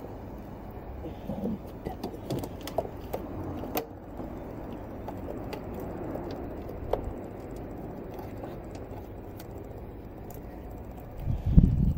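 Scattered small clicks and light knocks of hand work on parts, over a steady low background rumble, with a louder low thump near the end.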